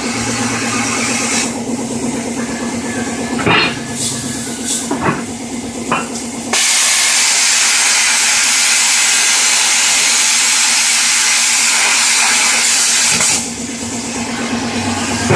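Plasma cutter on a home-built CNC table: a steady machine hum with a few sharp clicks, then about six and a half seconds in a loud, even hiss of the plasma torch's arc and air starts, runs for about seven seconds, and cuts off abruptly, leaving the hum again.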